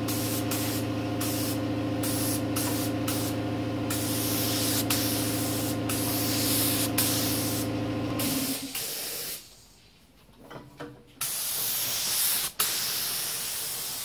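Gravity-feed spray gun spraying paint in passes, its hiss broken by brief pauses, over a steady machine hum that stops about two-thirds of the way through; then a few more short bursts of spray.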